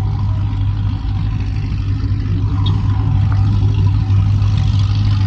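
Car engine running steadily, a deep even drone with no change in pitch.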